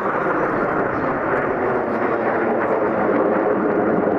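Jet engine noise from a formation of US Navy Blue Angels F/A-18 Hornets flying overhead: a loud, steady rushing sound that swells slightly near the end.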